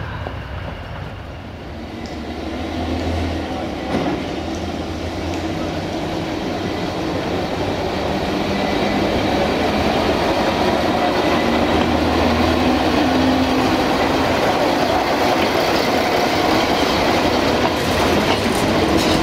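UAM215P self-propelled rail maintenance vehicle running past on the track, its engine drone and wheel clatter over the rail joints growing louder as it approaches, then staying loud. A single sharp knock about four seconds in.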